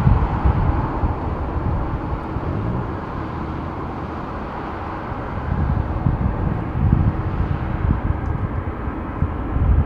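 Jet engine noise from a Boeing 787-9 on the runway: a broad, steady rumble that swells and dips in level.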